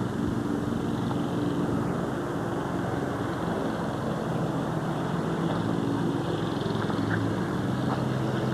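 A steady mechanical drone, a motor running evenly with a low hum of several steady tones that does not change.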